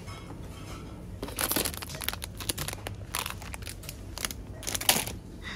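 Packaging being handled: several short bursts of crinkling and rustling, the loudest about a second and a half in and again near the end, over a steady low hum.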